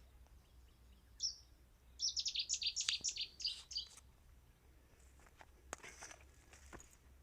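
A small songbird singing: a short high call about a second in, then a quick run of high chirping notes lasting about two seconds. Faint clicks and rustles follow.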